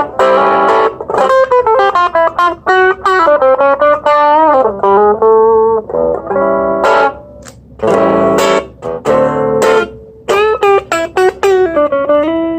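Electric guitar played through an Orange Crush Mini practice amp on its original built-in speaker: strummed chords and single-note lines with string bends, ending on a held note.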